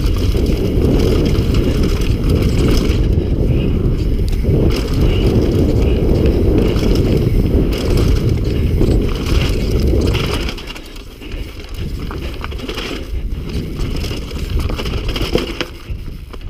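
Downhill mountain bike ridden fast down a dirt trail: a heavy rumble of tyres and wind buffeting the helmet or chest camera, with scattered clattering from the bike and loose ground. The rumble drops about ten seconds in and stays lower, uneven, to the end.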